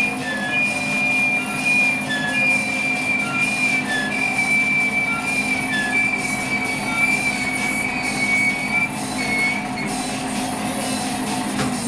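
Metal lathe running while a single-point threading tool takes a very fine finishing scrape on a stainless steel thread. Under a steady machine hum, the tool gives a high squeal that breaks off and resumes about once a second, then stops about ten seconds in.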